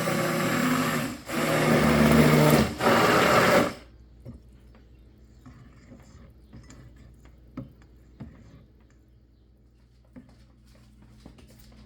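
Electric blender running in bursts as it mixes lye and goat milk soap ingredients, with a brief pause about a second in, then stopping abruptly near four seconds. After that there are only faint, scattered light clicks and rustles.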